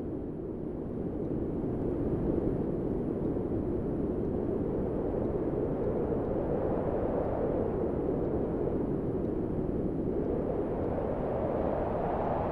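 A wind sound made with the mouth: a steady breathy whoosh that swells gently and rises in pitch near the end.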